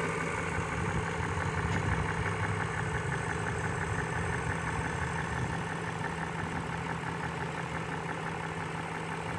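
A 2003 BMW X5's 4.4-litre V8 idling steadily. There is no noise from the secondary air injection pump, now that its disconnected hose has been reconnected.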